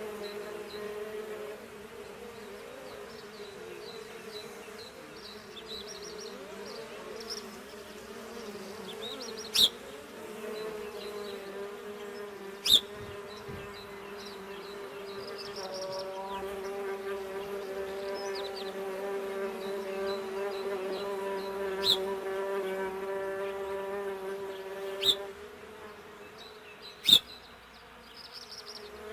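Bee buzzing in a steady hum that swells louder in the middle and drops away near the end. Five sharp clicks stand out over it.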